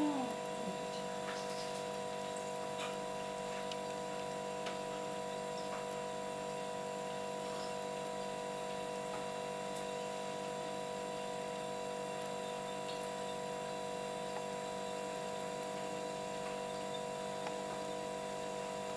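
A hairless cat's short meow trailing off right at the start, then a steady electrical hum made of several fixed tones, with a few faint ticks.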